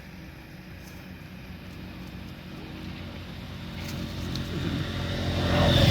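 A motor vehicle's engine running and drawing closer, its steady low hum growing steadily louder over the last few seconds.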